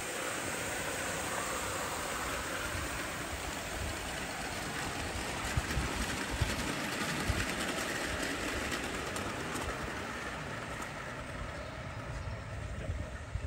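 O gauge live steam Mikado (2-8-2) model locomotive running on the garden railway track: a steady hiss of steam and running gear, with a few light clicks.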